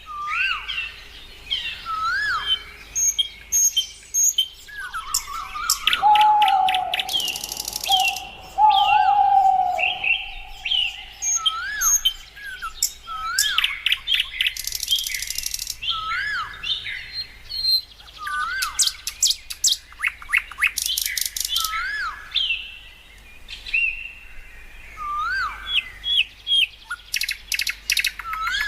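Several birds chirping and calling, with a short rising-and-falling note repeated many times, bursts of rapid high trills, and a lower drawn-out whistle for a few seconds about a quarter of the way in.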